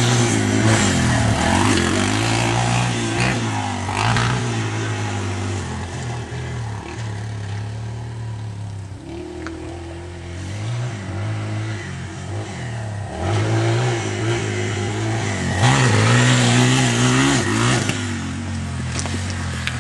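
Motocross dirt bike engine running and revving around a dirt track, its pitch rising and falling with each burst of throttle and gear change. It swells loudest near the start and again about sixteen seconds in.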